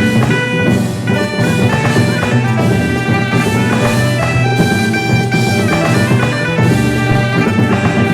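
Live ensemble music: wind instruments playing a sustained melody over drums and percussion strikes.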